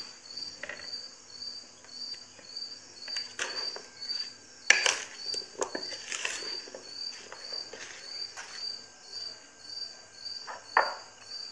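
Grapes are tipped onto a salad and stirred in with a spatula, making scattered soft knocks and scrapes; the sharpest comes a little before halfway. Under them an insect chirps steadily, about twice a second.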